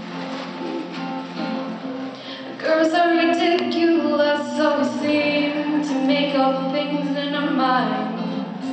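Acoustic guitar strummed on its own, then a girl's singing voice comes in with it, louder, about three seconds in, and carries on over the guitar.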